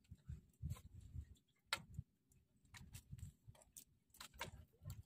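Near silence: faint, irregular ticks and soft low knocks on a small outrigger fishing boat while a hand line is worked over the side.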